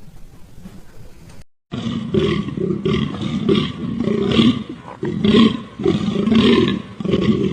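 A large animal roaring in a run of deep, rapid, repeated pulses, starting abruptly about one and a half seconds in after a short break from a quieter clip.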